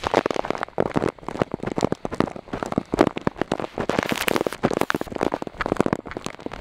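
Heavy rain and handling crackling on the plastic Ziploc bag sealed around the camera. It is a dense, irregular patter of sharp taps and crinkles, close up and loud.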